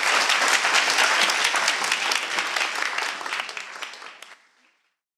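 Audience applauding, a dense patter of many hands clapping that fades away to nothing about four and a half seconds in.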